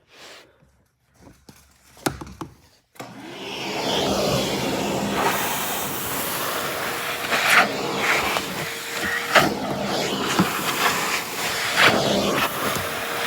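A few light clicks and taps, then about three seconds in a vacuum cleaner switches on and runs steadily with a faint hum. Its nozzle attachment works over car carpet with several sharp knocks and scrapes.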